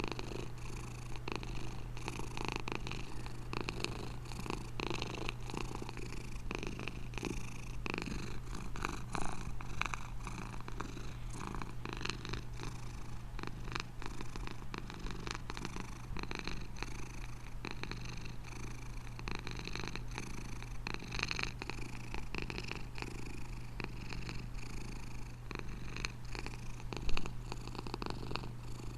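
Domestic cat purring steadily and continuously, close up. A brief louder knock comes near the end.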